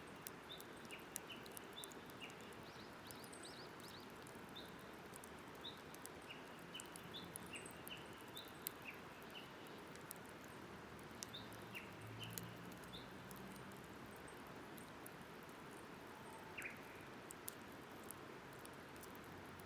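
A campfire crackling faintly with sharp little pops throughout, while birds outside give short chirping calls every second or so, one louder call coming near the end.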